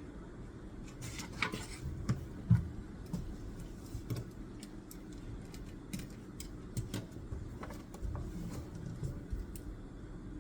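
Small desk-work sounds of pen and paper: scattered light clicks and taps at irregular intervals, with a brief scratchy rustle about a second and a half in.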